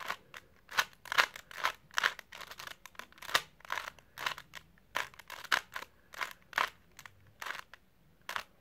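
Plastic 3x3 Rubik's Cube being twisted by hand: a run of quick clicks and clacks as the layers turn, about three or four a second and unevenly spaced.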